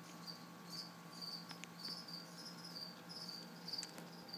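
A cricket chirping, short high chirps repeating steadily about two to three times a second, over a faint steady hum.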